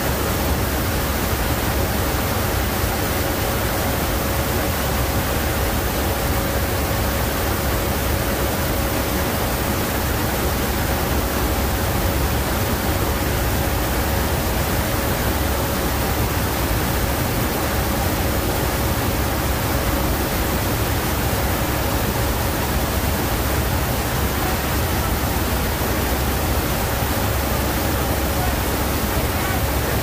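Steady loud roar of a military transport aircraft in flight, heard inside its cargo hold: an even rush over a deep rumble, with a steady whine held on one pitch.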